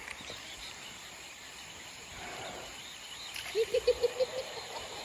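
Riverside jungle ambience: a steady insect buzz with faint high bird chirps. About three and a half seconds in, a bird gives a quick series of about six low notes.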